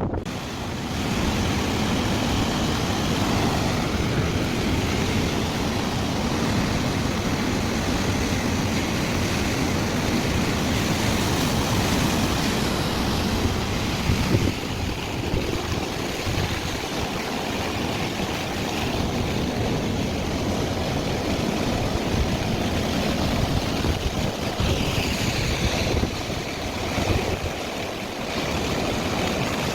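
Heavy winter surf breaking and washing onto the beach in a continuous, surging roar, with wind buffeting the microphone.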